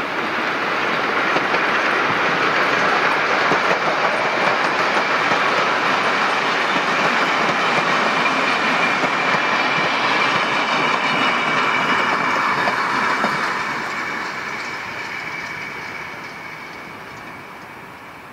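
A train passing close by: wagon wheels clattering over the rails with a thin steady squeal. It swells over the first couple of seconds, holds, and fades away from about thirteen seconds in as the train moves off.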